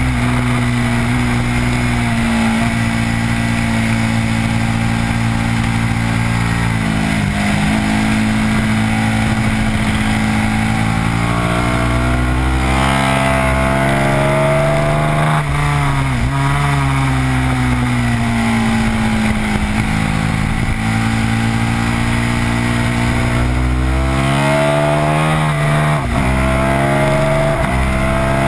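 Sport-bike engine heard from on board at high revs, its pitch climbing under acceleration and dropping sharply at gear changes and braking several times, over a steady rush of wind noise.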